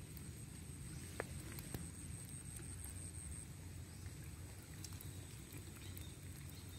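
Quiet outdoor ambience: a steady low rumble, a thin steady high tone, and a few faint clicks.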